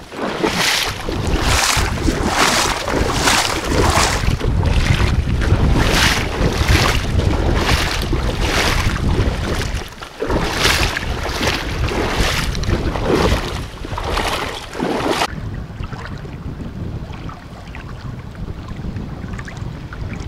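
Someone wading in waders through shallow sea water, a regular swish and splash of the legs about one and a half times a second, with wind buffeting the microphone; the strides stop briefly about ten seconds in. After about fifteen seconds this gives way to wind and small waves lapping against a rocky shore.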